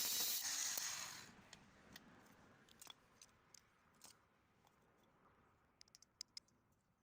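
Parkside 20V mini angle grinder with its cut-off wheel grinding, a loud hissing whine that stops about a second in. Scattered light clicks and taps follow.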